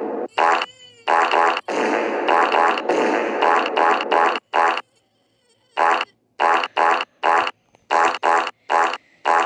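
Cartoon fart sound effects: a string of loud blasts, long ones at first, then after a short pause a quick run of short separate ones.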